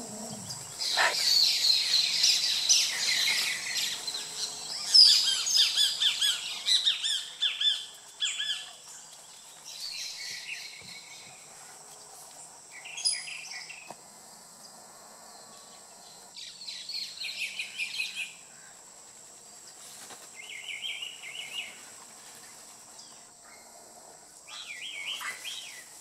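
A group of keel-billed toucans calling from the treetops: bursts of rapid, rattling high calls, thick for the first eight seconds or so, then in shorter spells with quiet gaps between.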